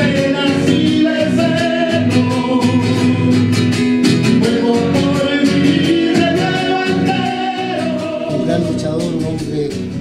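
Acoustic guitar strummed steadily while a man sings long, held notes over it.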